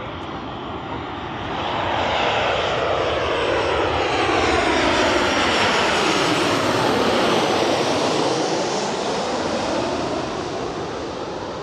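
Jet airliner on final approach flying low overhead with its engines running. The engine roar grows from about two seconds in, peaks as it passes overhead with a sweeping, falling whine, then fades as it heads away toward the runway.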